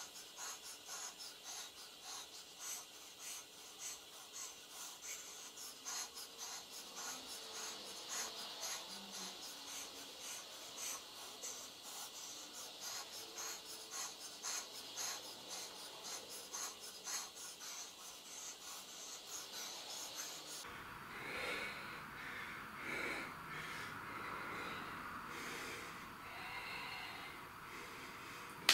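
A man breathing hard through a long set of bodyweight squats. For about the first twenty seconds the sound is sped up into a fast, scratchy rasping. About two-thirds of the way through it drops abruptly to normal speed, and the heavy breaths of someone winded from exertion come through plainly.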